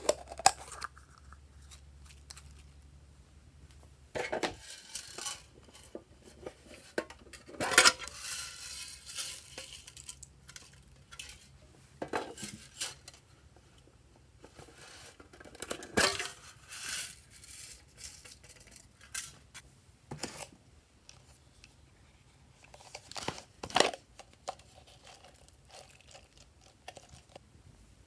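Small plastic novelty containers being handled and opened, and loose sequins, glitter and foam confetti being shaken out onto slime. It comes as separate clicks, rattles and rustles with short pauses, the longest a hiss of pouring lasting about two seconds, some eight seconds in.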